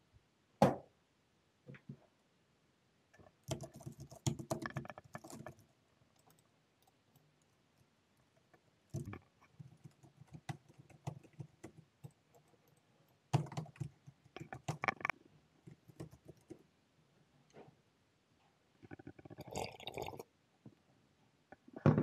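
Intermittent clicking and rattling of small objects being handled, in several short spells with a sharp tap near the start.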